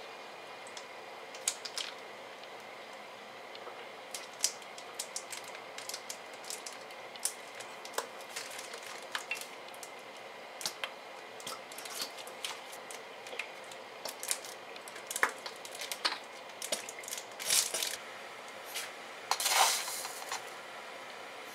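Scattered light clicks and taps of kitchen containers and utensils against a stainless steel pot of water, with a short rustling shake near the end as chicken-stock granules are sprinkled in.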